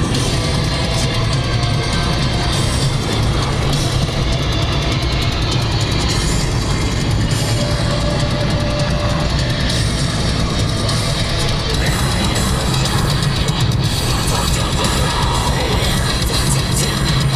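Heavy rock music with drums and distorted guitar, loud and steady.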